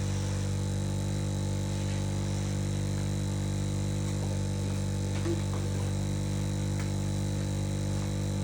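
Steady low electrical hum and buzz made of several low tones, unchanging throughout, with a few faint small handling sounds about halfway through.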